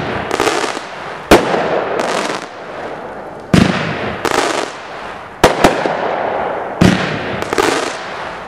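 Black Cat Hail of Fire multi-shot firework cake firing about four shots roughly two seconds apart: each a sharp launch bang, then a burst of crackling a moment later.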